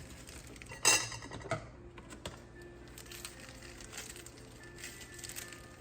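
A sharp clink with a brief ring about a second in, then a softer knock, like a utensil against a mixing bowl while ingredients are added, with faint rustling and soft background music.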